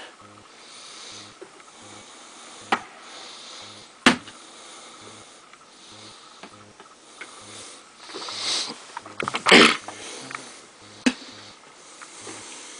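Handling noises: a few sharp clicks and knocks, and short breathy rushes of noise about two thirds of the way through, the loudest about three quarters in.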